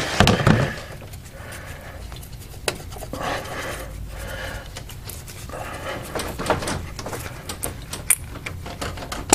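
A person breathing heavily in slow, noisy breaths close to the microphone, with light clicks and knocks as a hand grips metal transmission cooler lines.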